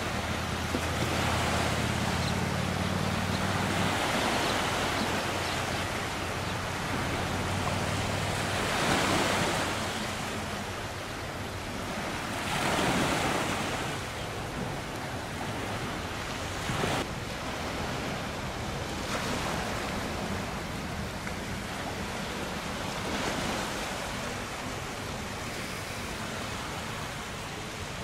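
Sea water washing and splashing around a small sailing boat under way, with wind buffeting the microphone. The water noise surges louder several times, and a single sharp knock sounds about two-thirds of the way through.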